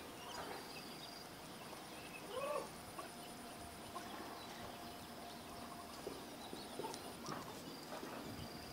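Quiet outdoor ambience: a faint steady hiss with a thin high hum, and about two and a half seconds in, one short distant animal call.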